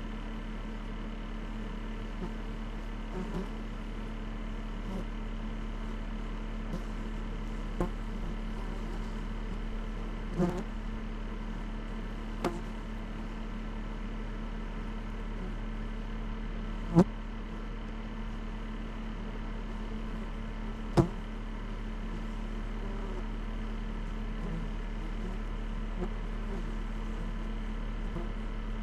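Dacia Solenza car driving over a rough mountain track, its engine and road noise making a steady drone. A handful of sharp knocks break in, the loudest two about four seconds apart past the middle.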